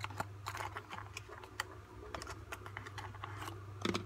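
Hands handling the white cardboard insert of a Redmi Note 9 phone box: irregular light clicks, taps and scrapes of cardboard, with a somewhat louder knock near the end. A steady low hum runs underneath.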